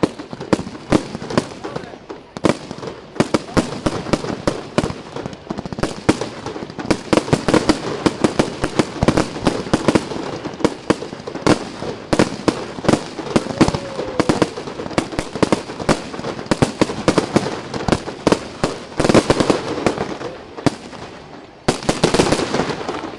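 Aerial firework shells bursting in a rapid, continuous run of bangs, several a second, with crackling between them. A denser, louder barrage comes near the end.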